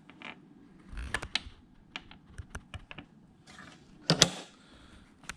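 Scattered light clicks and knocks of hands handling battery cables and fittings, irregular like typing, with a louder knock a little after four seconds in.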